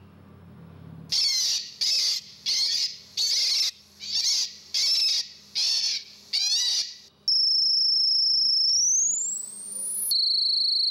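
Electronic bird scarer playing bird distress recordings through small loudspeakers: about nine short, high cries, then electronic tones. Each tone is a steady high whistle that sweeps upward, twice.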